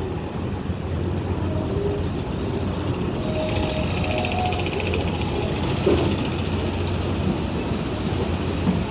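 Steady low rumble of passing traffic, joined about three seconds in by a hissing, finely clattering vehicle sound that cuts off suddenly near the end.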